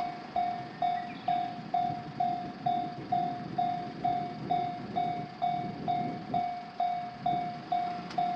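Japanese railroad crossing warning bell ringing in a steady electronic clang, a little over two strikes a second, each strike dying away. Under it a train passes over the crossing with a rough rumble, strongest in the middle.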